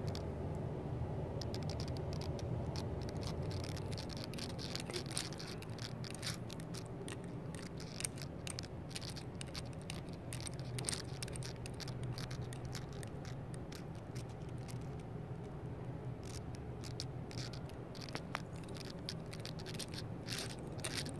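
Steady low room hum with many light, scattered clicks and scrapes, like a phone being handled while it is carried around.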